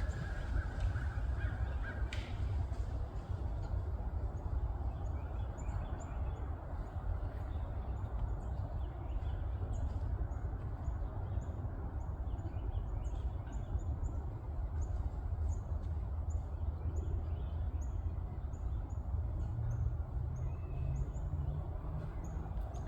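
Outdoor ambience: a steady low rumble, with short high bird chirps repeating a couple of times a second.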